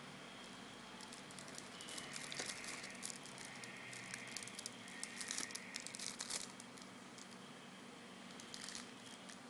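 Clear plastic film wrapped around a handheld solar charger crinkling as it is handled. The crinkling goes on and off for about five seconds, then comes once more, briefly, near the end.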